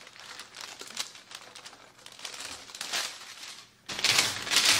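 Parchment paper crinkling and rustling as roasted corn slides off it into a glass bowl. About four seconds in, a louder rustle follows: a wooden spoon scraping the last bits across the parchment on a baking sheet.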